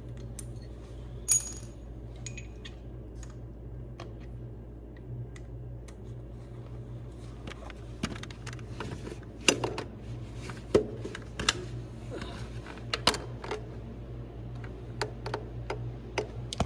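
Metal hand tools clinking and tapping irregularly as a socket and extension are fitted and worked on bolts, over a steady low hum; the clinks come thicker from about halfway through.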